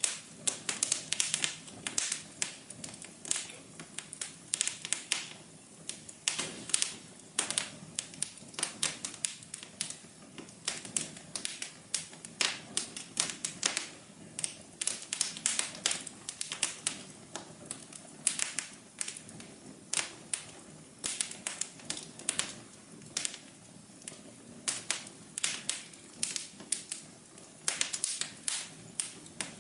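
Wood fire crackling: a steady scatter of sharp, irregular pops and snaps over a soft low hiss.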